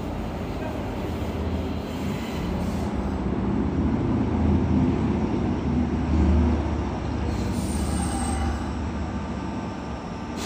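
Sanyo Electric Railway 3000-series electric train pulling in along the platform and braking to a stop. The rumble of motors and wheels on the rails builds to its loudest about four to six seconds in and then eases, with a faint high brake squeal about eight seconds in.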